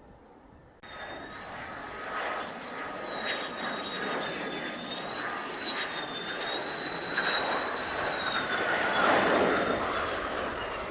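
Mitsubishi F-2 fighter jet's engine, a rushing jet noise with a high wavering whine, starting abruptly about a second in and growing louder to a peak near the end, where the whine drops in pitch as the jet passes.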